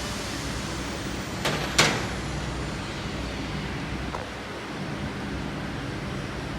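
Steady background hum of a workshop, with a brief sharp hiss of air about one and a half seconds in.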